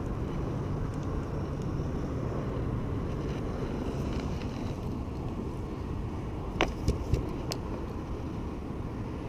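Steady low outdoor rumble, with a few sharp clicks about two-thirds of the way through as the fishing rod and jig are handled.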